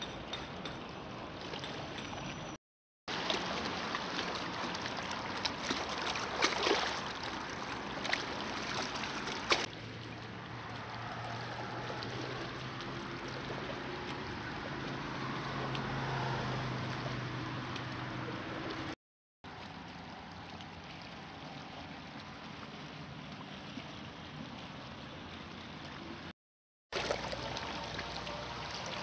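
Lake water lapping and washing against a rocky shore, a steady noisy wash with a few sharp knocks. It is broken three times by short dead silences where clips are joined.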